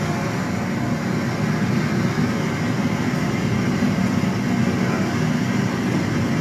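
Steady roar of Murchison Falls, the Nile forced through a narrow rock gorge, heard from a phone video played back through a TV's speakers: a loud, even rushing that starts suddenly.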